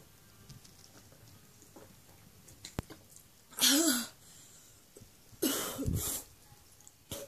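A woman coughing and gasping harshly twice, the first with a short voiced cry, after gulping neat vodka from the bottle: the burn of the spirit. A sharp click comes a little before the first cough.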